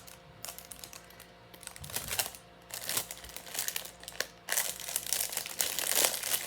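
Plastic bag crinkling as jewelry is handled in it, in irregular bursts that come thicker in the second half.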